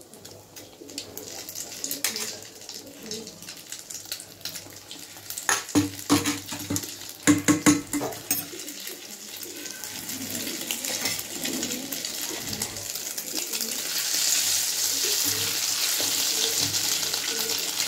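Oil sizzling as a slice of egg-dipped bread deep-fries in a pan, the sizzle growing louder over the last few seconds as hot oil is spooned over it. A cluster of sharp clinks of the metal ladle against the pan comes about six to eight seconds in.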